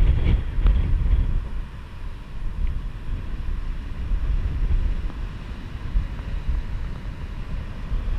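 Strong wind buffeting the microphone, gusting hardest in the first second or so, over the steady rush of heavy storm surf.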